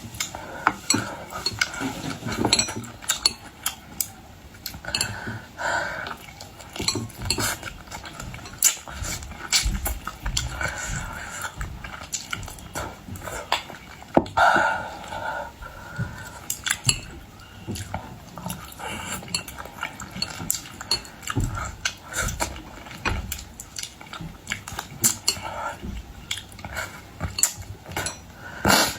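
Eating boiled seafood: a string of irregular clicks and clinks from dishes, utensils and shells being handled.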